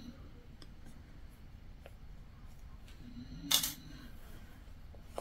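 Hand-sewing sounds: a few faint clicks of needle and fabric handling, and a short swish about three and a half seconds in as thread is drawn through the cloth.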